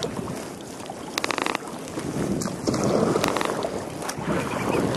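Kayak paddle strokes splashing in the water, with wind buffeting the microphone. About a second in there is a quick rattle of small clicks, and the splashing swells a little before the halfway mark.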